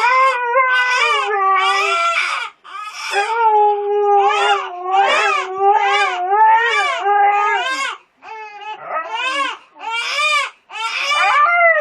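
A baby crying in rapid, repeated wails while a husky howls along in long, steady held notes; the two voices overlap, with a few short breaks.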